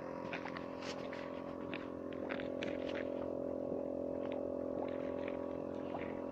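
Aeration air bubbling up through pond water in a hole in the ice, gurgling in short irregular pops, over a steady mechanical hum.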